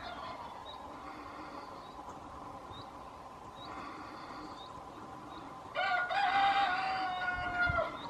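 A rooster crowing once, one long call of about two seconds starting near the end, its pitch held steady and then dropping slightly.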